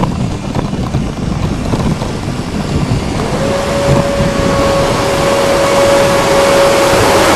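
Cement mixer trucks working: steady heavy-vehicle noise, joined about three seconds in by a steady whine that slides up briefly and then holds its pitch.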